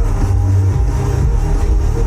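Loud electronic dance music with a heavy, steady bass beat, played over a sound system.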